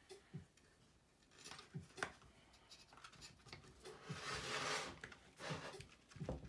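Hands working parts of an opened Mac mini: a few small clicks and knocks of parts in the aluminium case, and a longer rubbing scrape about four seconds in.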